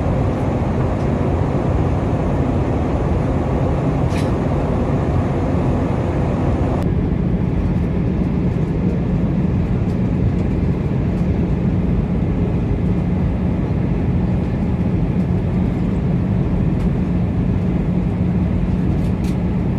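Airbus A320 cabin noise in flight: the steady rush of engines and airflow. About seven seconds in, the sound changes abruptly: the hiss thins and a steady low hum comes to the fore.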